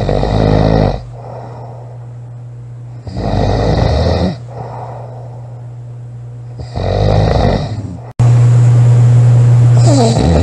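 A girl snoring loudly, with three snores about three seconds apart over a steady low hum. A little after eight seconds the sound cuts out and gives way to a louder, steady low drone.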